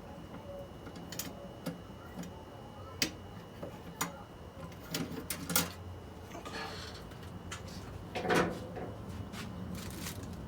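Hand tools and loose metal parts clicking and clinking during engine teardown work. There is a brief scrape in the middle and a louder metallic clunk about eight seconds in.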